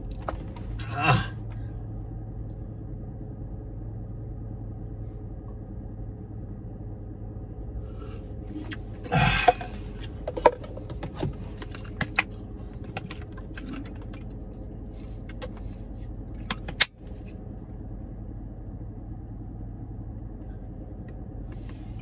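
Steady low hum inside a parked car's cabin. Over it come a few short eating noises and light clicks from a plastic spoon and paper ice-cream cup, the loudest about nine seconds in.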